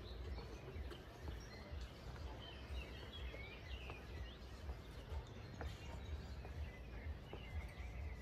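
A small songbird chirping in a quick twittering run in the middle, over a steady low rumble and a few faint scattered clicks.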